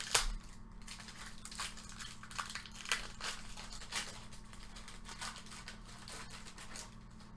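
Trading cards being handled and flipped through, a string of short papery clicks and rustles with one sharper snap right at the start.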